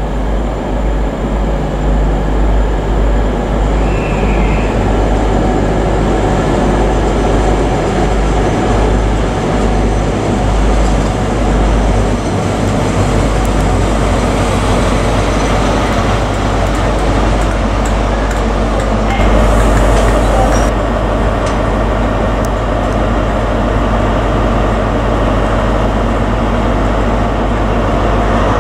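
Class 43 HST power car's diesel engine running with a steady low hum as the train draws into and stands at the platform.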